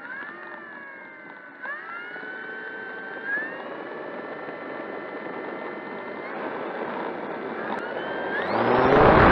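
Electric motor and propeller of an E-flite Air Tractor RC plane whining as it rolls along the runway, the pitch stepping up a few times early on and then holding. Near the end the motor opens up and a loud rush builds as the plane begins its takeoff run.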